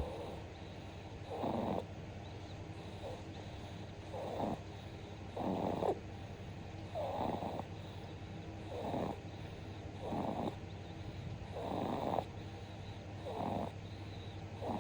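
Two-month-old baby snoring in sleep: a short snore with each breath, about every second and a half.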